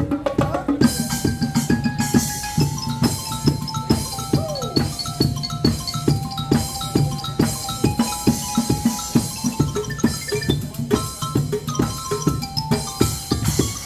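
Upbeat percussion music: a steady run of drum strokes, played on homemade drums built from used materials, over a bass line, with short bright pitched notes like a marimba or glockenspiel.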